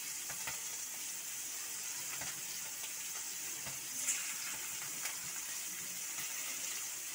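Cabbage-and-chicken vada patties shallow-frying in hot oil in a steel pan on a low flame: a steady sizzle with small crackles. About four seconds in, a brief louder sizzle as another patty is slid into the oil.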